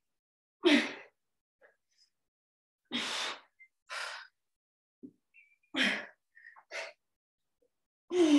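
A woman's forceful, breathy exhales from exertion during dumbbell sit-up-and-press reps: about six sharp breaths spaced a second or two apart, a couple of them with a short grunt of voice.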